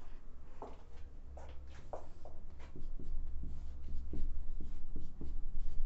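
Marker pen squeaking on a whiteboard in a run of short separate strokes, underlining a heading.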